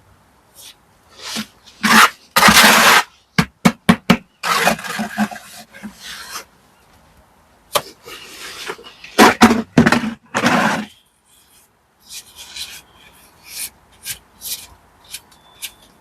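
Hand tools scraping and rubbing on brickwork in irregular strokes, with a few sharp knocks between them.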